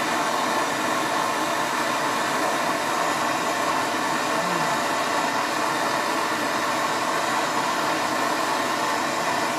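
Handheld gas torch burning with a steady hiss, its flame held on a turbo actuator housing to heat it.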